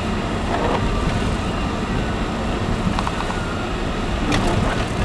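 Steady road noise inside a moving car's cabin: engine and tyres running over a snow-covered road, a constant low rumble with a few faint clicks.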